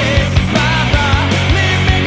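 Music with a steady beat and a melody that bends in pitch.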